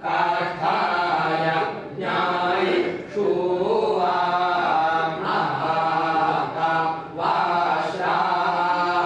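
Several men's voices chanting scripture together in a steady recitation, phrase after phrase, with short breath pauses between phrases.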